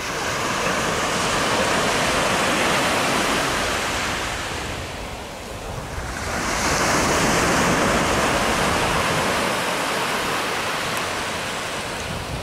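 Surf breaking on a sandy beach: two long swells of wave hiss, the second rising about six seconds in, with some wind rumble on the microphone.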